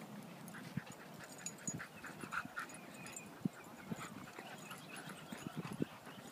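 Dogs play-wrestling, a Great Dane among them: short whines and yips come in scattered bursts, with soft low thumps mixed in.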